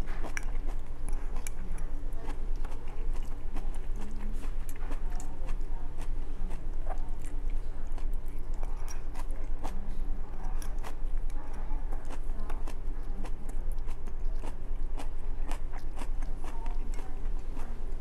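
A person chewing and eating rice and stir-fried cabbage with chopsticks, heard close up: many small sharp clicks and mouth sounds, over a steady low hum.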